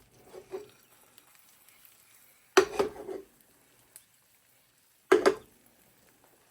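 Two sharp knocks against a frying pan, about two and a half seconds apart, with a couple of lighter taps near the start and faint frying between them.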